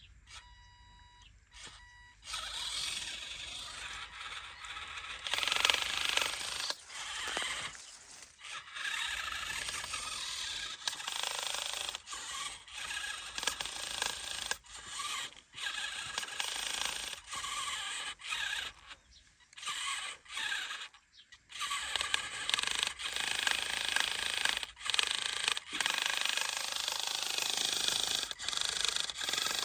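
Small electric motors and plastic gears of an RC toy tractor whining in repeated bursts, starting and stopping many times as it is driven. A few short electronic beeps sound just before the first run.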